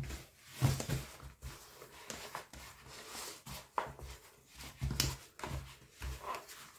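Hands kneading a soft, sticky yeast dough in a plastic bowl: irregular squelches, slaps and dull thumps as the dough is pressed, folded and turned.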